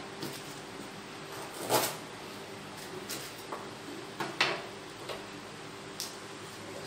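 Kitchen knife chopping lemongrass stalks on a wooden cutting board: a few irregular sharp knocks, the loudest about two seconds in, over a steady low hum.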